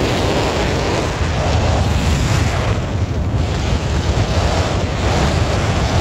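Wind blowing across the microphone: a loud, steady rushing noise with a heavy low rumble that surges and dips slightly.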